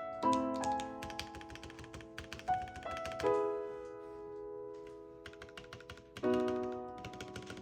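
Fast typing on a KBD67 Lite R3 mechanical keyboard: a dense run of key clacks that thins to a short lull about halfway through, then picks up again. Soft background music with held chords plays underneath.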